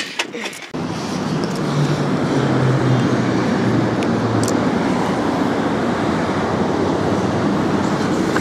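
A few brief clicks, then, from about a second in, a motorcycle being ridden at a steady pace: its engine running under a steady rush of wind noise on a rider-mounted camera microphone.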